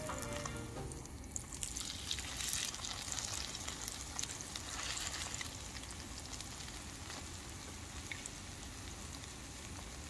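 A pancake frying and sizzling in a small pan on a camping gas stove after being flipped with a spatula. The sizzle swells briefly about two and a half seconds in and again about five seconds in.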